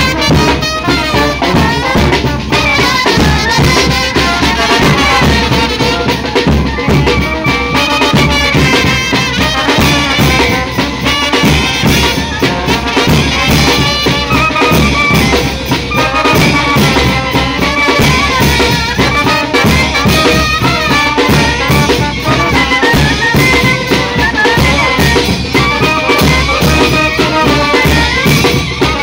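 Mexican street banda playing live: brass carrying the melody over a steady beat of bass drums, snare drums and hand cymbals.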